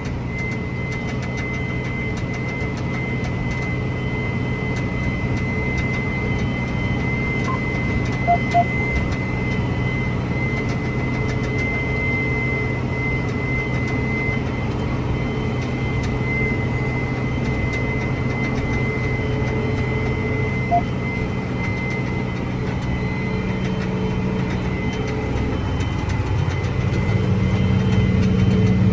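Large farm tractor's diesel engine running steadily under load, heard from inside the cab while pulling a vertical tillage tool through corn stalks, with a thin steady whine over the engine drone. Near the end the engine note grows louder and deeper.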